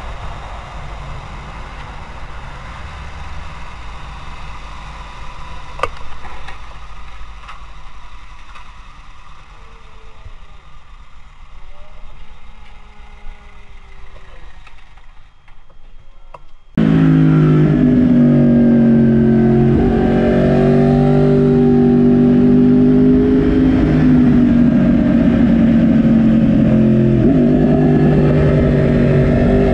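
Wind rumble and road noise from a moving motorcycle seen from the rider's helmet. About two-thirds of the way through, a sudden cut to a Yamaha R1's inline-four engine running loud and steady, its pitch rising and falling slightly as the bike rides downhill.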